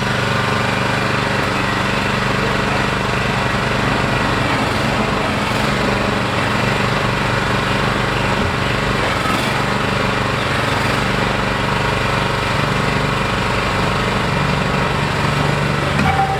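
Small gas engine of a Harbor Freight mini excavator running steadily, its note shifting slightly near the end.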